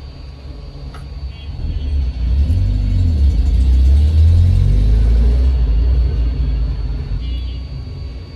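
Low rumble of a passing motor vehicle that swells about two seconds in, is loudest near the middle and fades away, with a faint steady high whine underneath.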